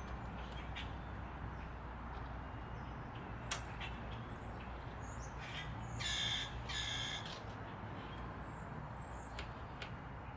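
A bird gives two harsh calls about six seconds in, over a steady rumble of wind on the microphone, with one sharp click a little after three seconds.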